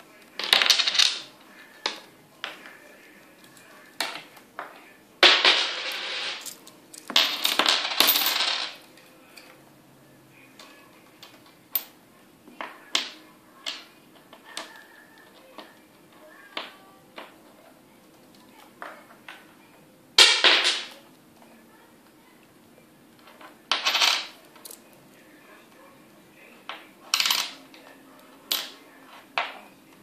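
Budgerigar picking up and dropping small coins on a wooden desk: sharp clinks and taps again and again, and several times a coin rattles and spins down on the tabletop for a second or so before settling.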